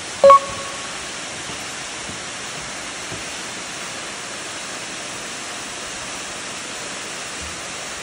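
Steady, even rush of the Mitō Ōtaki waterfall, a tall, thin cascade heard from some way off. A brief high tone sounds about a quarter of a second in.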